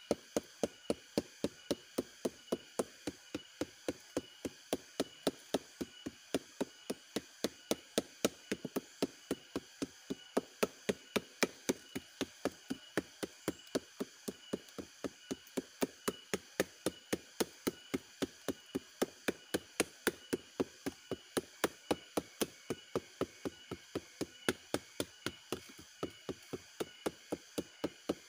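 Wooden mallet of about one kilo beating the flower stalk of an aren sugar palm, a steady run of dull wooden knocks about three a second. This is the beating stage that bruises the stalk so that it will give sap when tapped.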